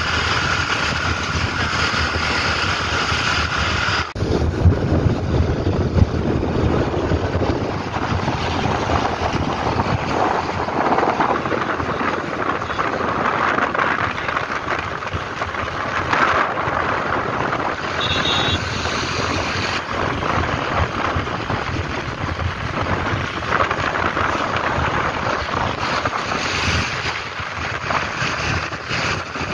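Wind rushing over the microphone with road and traffic noise, recorded while riding an electric scooter.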